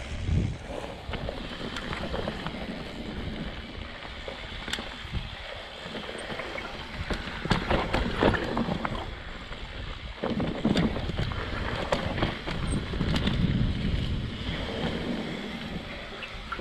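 Mountain bike riding down a rough dirt downhill trail: wind rushing over the camera microphone, tyres on dirt and the bike rattling over bumps, with rougher, louder stretches about halfway through and again a little later.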